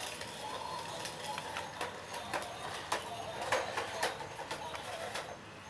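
Plastic stunt RC car tumbling and spinning on a concrete floor, its body and wheels clattering against the ground in a string of irregular clicks and knocks, thickest in the middle.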